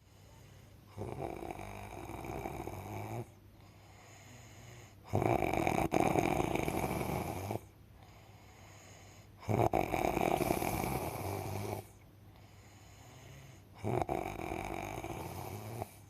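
Loud snoring: four long snores about every four seconds, with quieter breathing between them.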